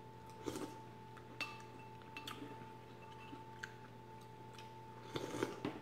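Spoon clinking lightly against a soup bowl as chowder is scooped and eaten, a few scattered clinks with a busier cluster of clinks and mouth sounds near the end. A steady faint hum runs underneath.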